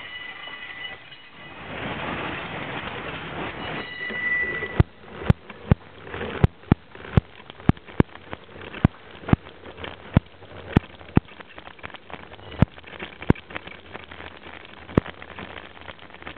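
Long freight train rolling past: steady rail noise, with a thin high wheel squeal near the start and again about four seconds in. From about five seconds in comes a run of sharp, irregular clicks, roughly two a second, that thin out near the end.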